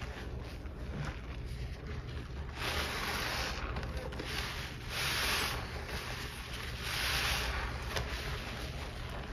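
A sponge soaked in thick cleaning-solution suds being squeezed and kneaded by gloved hands in a basin: wet squelching and sloshing foam, with three louder squeezes about two seconds apart, starting a few seconds in.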